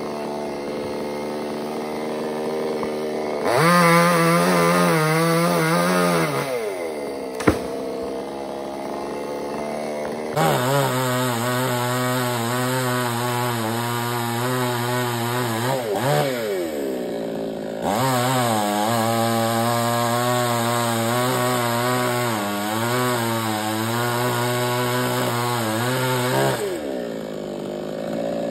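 Chainsaw idling, then revved to high speed three times for several seconds each, its pitch wavering as it works, and dropping back to idle in between. A sharp click sounds once, during the first idle.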